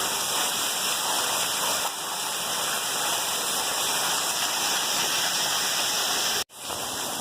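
Heavy hurricane rain pouring down in a steady, dense hiss, broken by a sudden brief cut-out about six and a half seconds in.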